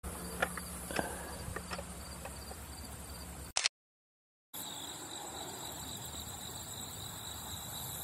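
Outdoor field ambience with insects chirring in the grass, a steady high-pitched insect drone plain in the second half. The sound drops out briefly just past halfway, with a sharp click at the splice.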